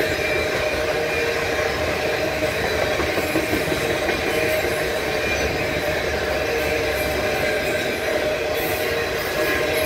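Freight train cars, tank cars and a covered hopper, rolling past at close range: a steady rumble and rattle of steel wheels on rail, with a faint steady ringing over it.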